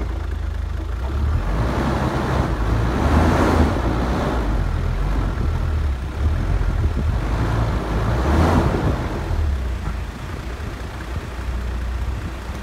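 Wind buffeting the microphone on an open beach, a steady low rumble with two swells of rushing noise about five seconds apart.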